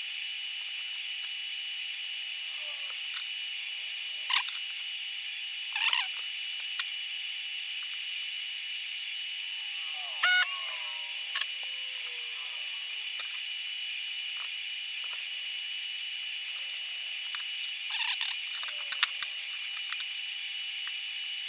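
Light clicks and taps of a soldering iron and desoldering gun against the wires and fuse holder of a Commodore 128 power supply as the wires are desoldered, with a few faint squeaks. The sharpest clicks come about four, six, ten and eighteen seconds in, over a steady hiss.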